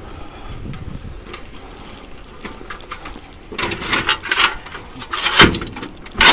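Metal clattering and knocks from a heavy old washing machine being handled on a sack trolley, starting about halfway through, with two loud knocks near the end, over a low steady hum.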